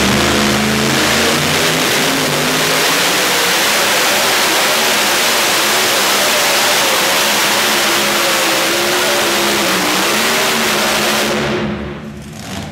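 Two-wheel-drive pulling tractor's supercharged engine at full throttle, revving up at the start and then held at high revs as it drags the weight sled. The engine note drops away sharply near the end as the throttle is released.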